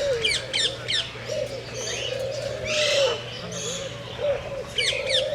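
Scarlet macaws and other birds calling. Low arching notes repeat throughout, quick high falling chirps come near the start and again near the end, and a harsh squawk sounds about three seconds in.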